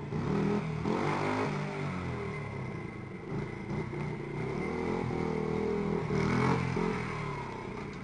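Honda Monkey mini bike's single-cylinder four-stroke engine running through its exhaust as it is ridden, revving up about a second in and again near the end.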